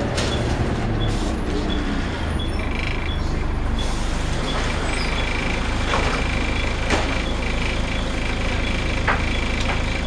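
Cabin sound of a Volvo B10BLE single-deck bus on the move: its six-cylinder diesel and drivetrain running steadily under body rattle. A faint tick repeats about twice a second, a steady high tone comes in about halfway through, and a few sharp knocks near the end.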